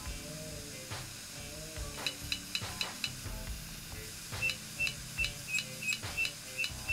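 Opened, failing hard drive running with its lid off: the read/write head arm clicks repeatedly, about three times a second, over a faint steady hum. The clicks start about two seconds in and become regular about halfway through. This is the repeated clicking of a drive that no longer works properly.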